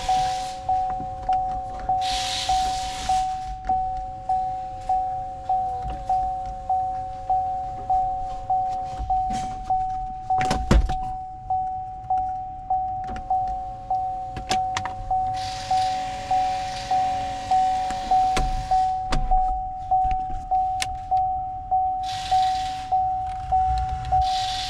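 A vehicle warning chime dings steadily over and over. In between, the power sunroof's electric motor whines in several runs of a few seconds as the glass slides, with a sharp thunk about eleven seconds in.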